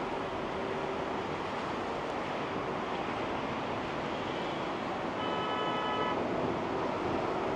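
Steady outdoor wash of surf, wind and distant traffic. About five seconds in, a vehicle horn sounds once for about a second.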